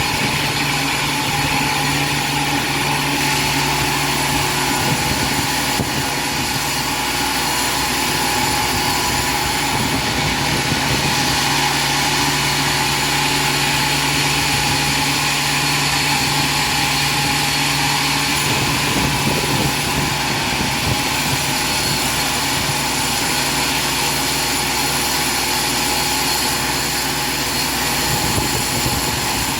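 Sawmill machinery running steadily: a dense, even mechanical noise with constant whining tones.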